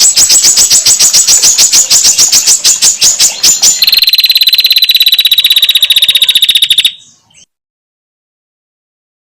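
Female prinia (prenjak) giving its fast rattling 'ngetir' call: a rapid string of sharp notes, about a dozen a second, changing a little under four seconds in to a thinner, higher trill. It stops abruptly about seven seconds in.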